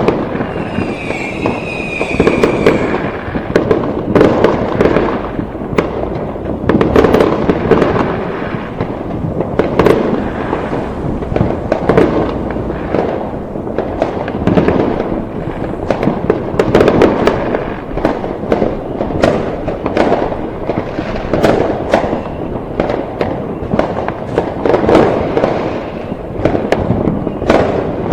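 A dense fireworks barrage: overlapping bangs and crackling bursts follow one another without a pause, with a whistling tone in the first few seconds.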